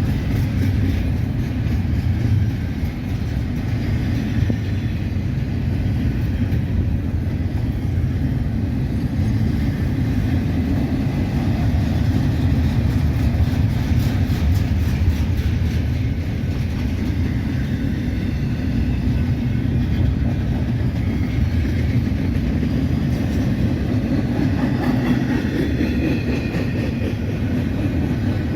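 Freight train rolling past at steady speed: a continuous low rumble of steel wheels on rail.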